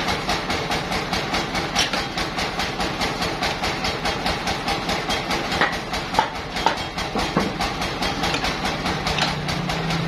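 Band sawmill machinery running steadily with no log in the cut, a continuous mechanical rattle and hum, with a few sharp metal clanks as the log carriage's lever clamps are set against the log.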